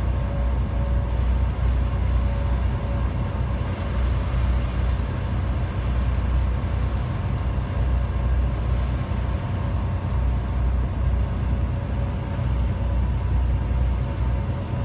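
A ferry's engines droning steadily: a low rumble with a faint steady whine above it, heard from inside the passenger cabin.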